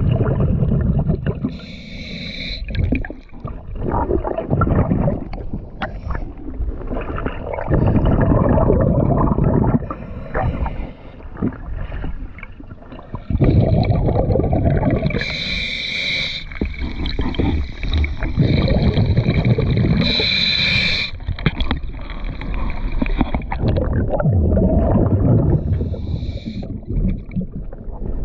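A diver breathing through a regulator underwater: loud bubbling rumbles of exhaled air every few seconds, alternating with short hissing inhalations that carry a thin high whistle.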